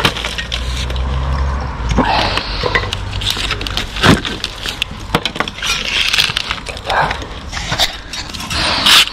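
Bricks and soft, crumbly old mortar being worked loose by gloved hands: scraping and grinding of brick on mortar, with many small clicks and clinks of falling grit and fragments.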